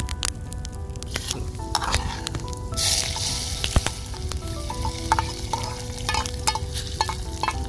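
Sliced onions scraped off an aluminium plate with a metal spoon into a pot of hot oil: the oil starts sizzling about three seconds in and keeps frying, with the spoon clinking against the plate and pot.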